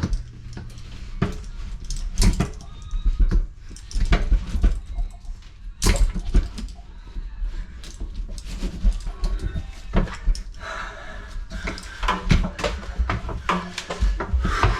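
Irregular knocks, clinks and clatter from hands-on plumbing work, with several sharp strikes spread through the stretch.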